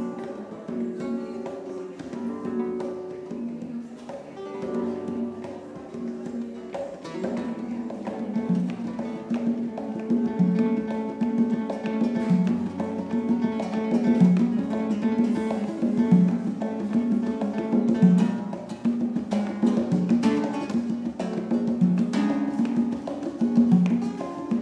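Spanish-style acoustic guitar playing a flamenco-flavoured line, accompanied by hand-played congas. The conga hits get fuller and louder about a third of the way in.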